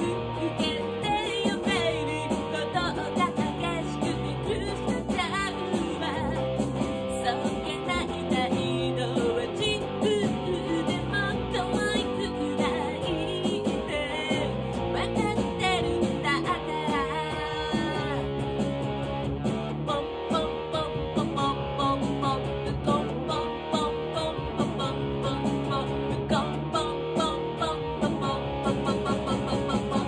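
A woman singing a pop song with an electric guitar accompanying her, the guitar played through an Effects Bakery New Ginger Fuzz pedal. The song cuts off at the very end.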